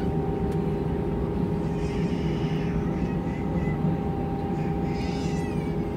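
Airliner's jet engines running steadily, heard from inside the passenger cabin as an even rumble with a constant hum.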